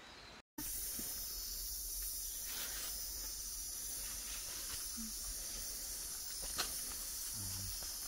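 Steady high-pitched hiss of a rainforest insect chorus, starting abruptly about half a second in, with a single sharp click about six and a half seconds in.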